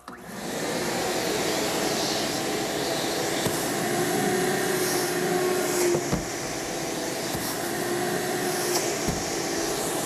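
Ridgid 5-peak-horsepower wet/dry shop vac switched on, its motor spinning up over the first second and then running steadily with a rushing airflow and a faint steady hum as its hose suction lifts a cardboard box. A couple of short dull thumps come through, around the middle and near the end.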